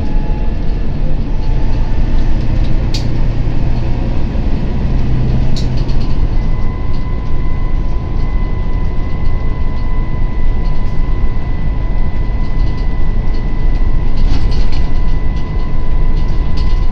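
Interior of a Volvo B9TL double-decker bus on the move, heard from the upper deck: a steady, loud diesel engine and road rumble. A thin, steady high whine comes in about six seconds in, and there are a couple of sharp rattles in the first few seconds.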